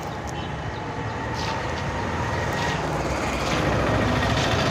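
Road traffic: a motor vehicle's engine rumble that grows steadily louder.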